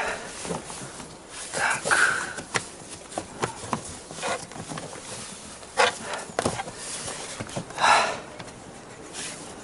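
Handling noises in a car cabin: scattered clicks and knocks, with a few short rustling bursts, the loudest near the end.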